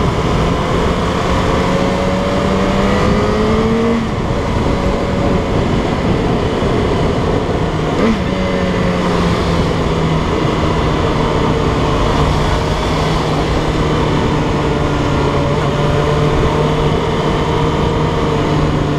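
Yamaha XJ6's inline-four engine running as the motorcycle rides along. Its pitch climbs and drops at gear changes about four and eight seconds in, then eases slowly down, over steady wind and road noise.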